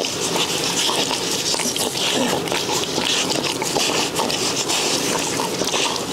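Tissue paper rubbed briskly over a newborn Rottweiler puppy's wet body in repeated rustling strokes, stimulating a puppy born asphyxiated after its waters broke so that it starts breathing.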